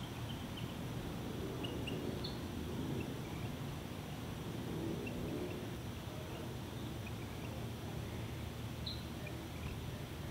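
Outdoor ambience: a steady hiss with faint, scattered short high chirps.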